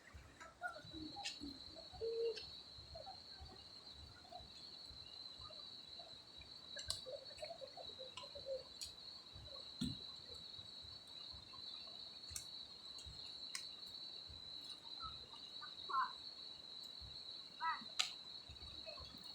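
Faint, steady high-pitched insect trilling at one unchanging pitch, starting about a second in, with scattered faint clicks and knocks.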